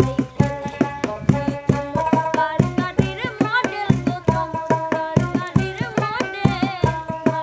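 Bengali folk song: a steady hand-drum rhythm under plucked strings and a wavering melody line.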